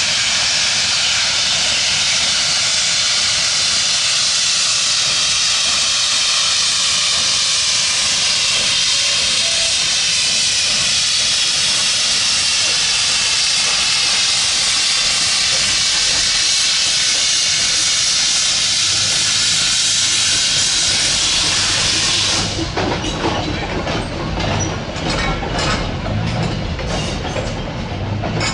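Small steam tank locomotive letting off a loud, steady hiss of steam that cuts off suddenly about 22 seconds in. After it, the wheels of the passenger coaches click over the rail joints of the steel girder bridge with a low rumble.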